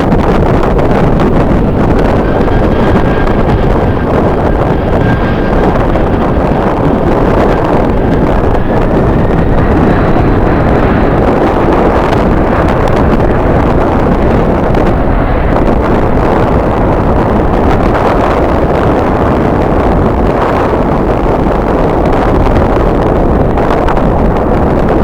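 Strong wind buffeting the microphone, a loud, steady rumble and roar. A faint high whine rises slightly in pitch over the first ten seconds or so.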